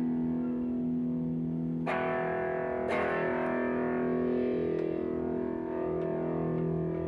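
Electric guitar played through a REVV Northern Mauler high-gain pedal: held chords ring out, with new chords struck about two and three seconds in.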